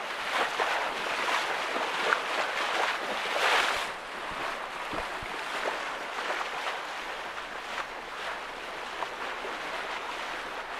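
Steady rush of wind and water around a Westerly Centaur sailing yacht reaching fast under sail, the hull hissing through the chop, with a louder surge about three and a half seconds in.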